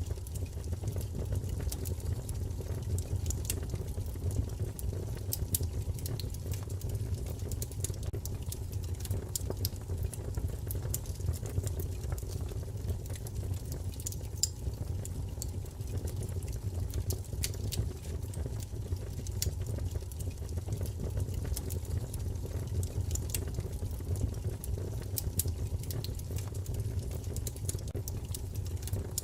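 Wood fire burning: a steady low rumble of flames with frequent small, irregular crackles and pops.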